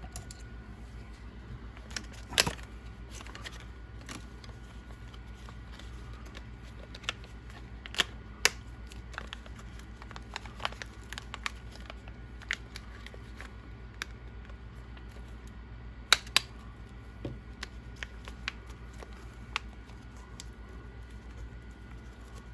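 Small RC car suspension parts being handled and fitted together by hand: scattered light clicks and taps, a few sharper ones about 2 s, 8 s and 16 s in, over a steady low hum.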